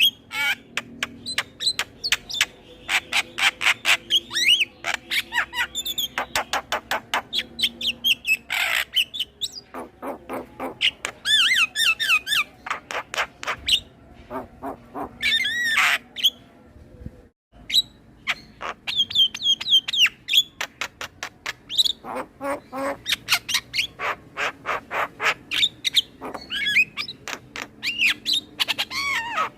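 Male Javan myna singing a busy, varied song: rapid clicking rattles and harsh squawks mixed with whistled, warbling glides, packed with mimicked phrases. A short break comes just past halfway.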